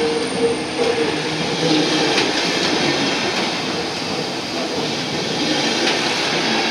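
Deutsche Bahn Intercity passenger coaches rolling past along a platform: steady wheel-on-rail rumble, with a squeal from the wheels coming and going and a few light clicks over rail joints.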